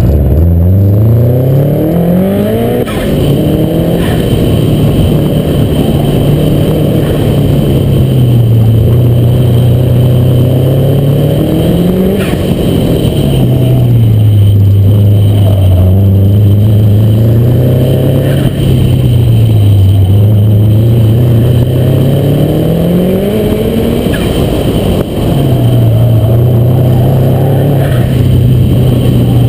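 Subaru WRX STI's turbocharged flat-four engine, heard from inside the cabin, driven hard. The engine note climbs in long rising sweeps and drops back several times as the car accelerates, then lifts or shifts.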